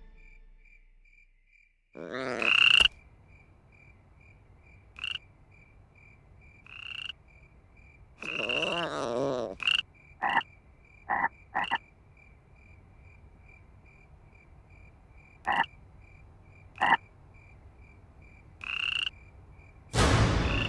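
A toad croaking again and again, a dozen or so separate croaks, the loudest about two seconds in and a longer one near the middle, over a steady high chirping pulse about three times a second. Music comes in suddenly at the very end.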